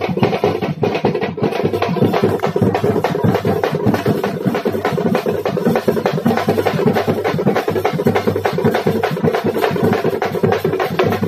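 Loud, fast, continuous festival drumming with a steady droning tone underneath, as accompanies a kavadi at a Tamil temple procession.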